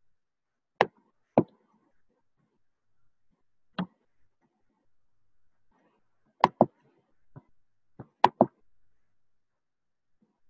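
About nine sharp, short clicks and knocks, scattered irregularly and some in quick pairs about six and eight seconds in, with near silence between: handling noise at a computer while no one speaks.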